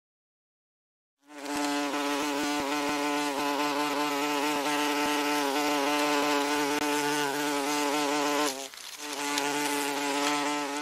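A wasp buzzing in flight close by, in a steady, slightly wavering drone. It starts about a second in and drops away briefly near the end before picking up again.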